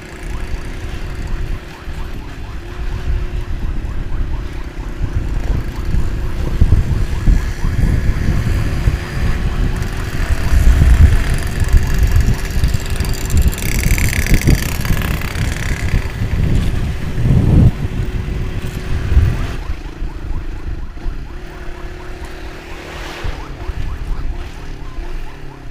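Motorcycle on the move: wind buffeting the helmet-mounted microphone over the engine's steady drone. A brief higher-pitched sound rises above it about halfway through.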